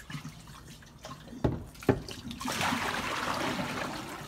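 Two knocks about a second and a half in, then water pouring out of a filled container in a steady stream from about halfway through.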